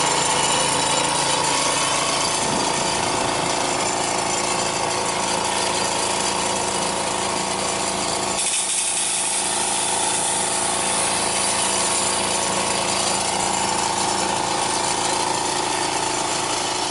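Small V-twin engine (a Vanguard 23 hp, 627 cc) running steadily at high throttle, driving a Hale HP200 fire pump, with water jetting from the hose nozzle.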